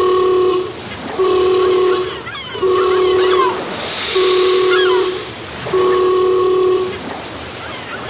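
A horn sounds five blasts at one steady pitch, each just under a second long with short even gaps between. Faint high chirps sound in the gaps.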